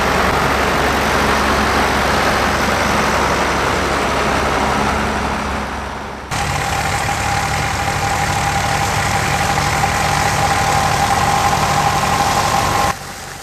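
Grey Ferguson tractor's engine running steadily while working a ploughed field, with a steady high whine over the low engine note. The sound changes abruptly about six seconds in and drops away just before the end.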